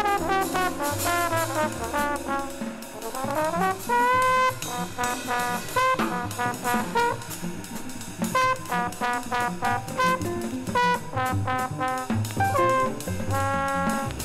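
Jazz group playing, with a trombone in the lead. It plays a fast falling run, then a rising one about three seconds in, then held and repeated notes over bass and drums.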